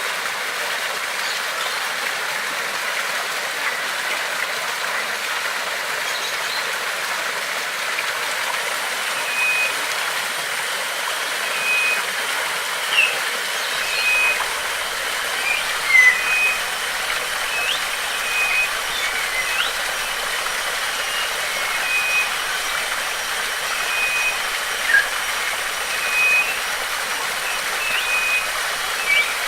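Steady rush of a stream or waterfall. From about a third of the way in, a bird repeats a short, even whistled note every second or two, with a few brief rising chirps in between.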